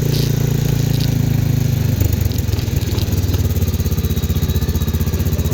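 CFMOTO 500 ATV's single-cylinder engine running, its revs dropping about two seconds in to a steady, pulsing idle.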